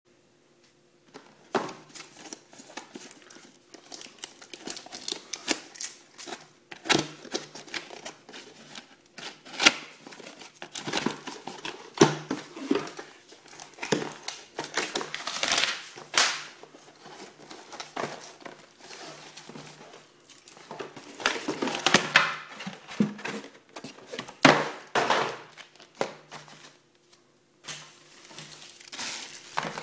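Packaging being handled during an unboxing: cardboard box flaps and paper inserts moved, then plastic bags around the charger and netbook crinkling, in an irregular run of scrapes and crackles.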